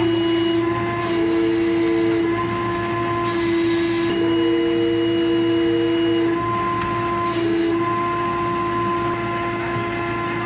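Unloading hoist machinery running with a steady whine. A second, higher tone cuts in three times, once for about two seconds, as the hoist works.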